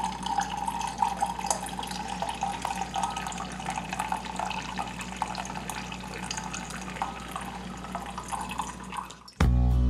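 Red wine pouring in a steady stream from a bottle through a pour spout into a wine glass, splashing into the filling glass. It cuts off suddenly near the end as guitar music comes in.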